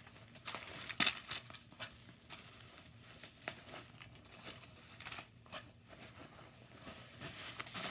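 Plastic wrapping being handled and unwrapped, crinkling and rustling in irregular crackles, the loudest about a second in.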